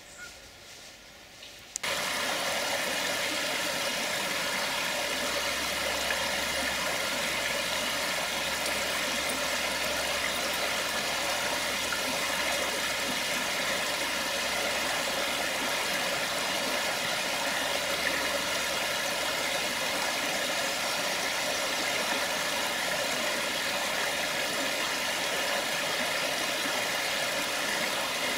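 Shallow river running over stones and gravel: a steady rush of water that starts abruptly about two seconds in.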